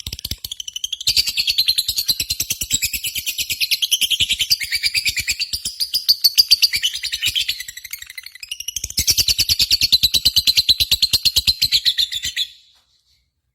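Lovebird chattering in long rapid runs of sharp, evenly repeated notes, about ten a second. The notes break briefly about eight seconds in and stop about a second before the end.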